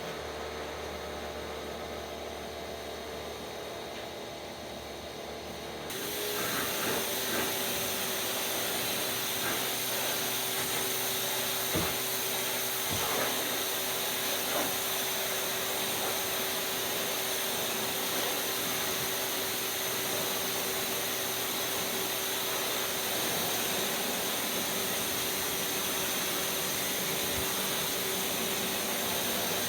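Pressure washer running. About six seconds in, the spray starts and a loud, steady hiss of the high-pressure water jet sets in over the machine's steady hum, and it holds for the rest of the time.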